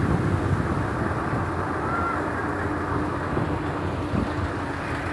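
Steady low rumble of wind buffeting the microphone, with a faint steady hum over the second half.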